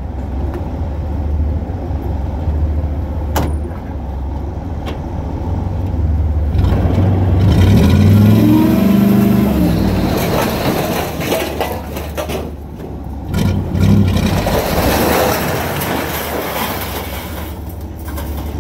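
A dump truck's engine running steadily, revved for several seconds in the middle to drive the hoist as the bed tips up. Near the end comes a loud rushing clatter as the load of scrap tin slides off the raised bed.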